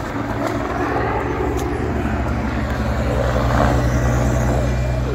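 Race convoy passing close by: a race motorcycle and team cars running, with the low drone of a helicopter overhead that grows louder partway through.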